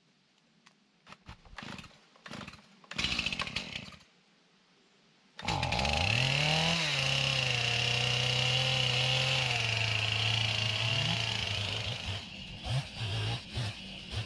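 A few short scuffing noises, then a chainsaw starts abruptly about five seconds in, revs up briefly and runs steadily. Near the end its note drops and it breaks into uneven bursts of throttle.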